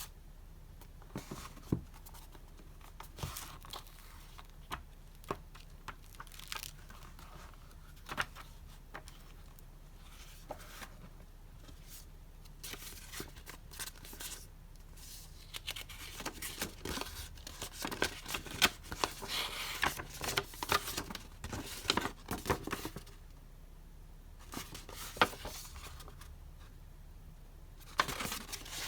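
Paper and plastic packaging being handled and torn open: scattered light taps and rustles, then a long stretch of dense tearing and crinkling in the middle that eases off toward the end.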